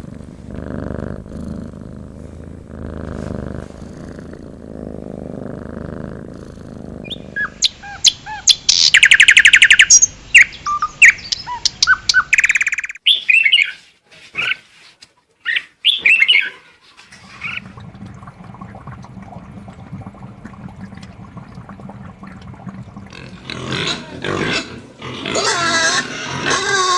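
A run of different animal calls one after another. The loudest part is a stretch of shrill, rapid bird chirps and squawks, which is preceded by low pulsing calls and followed by scattered calls and a louder drawn-out call near the end.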